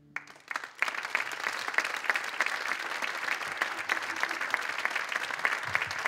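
Audience applauding as the last note of the song dies away, building over the first second into steady clapping.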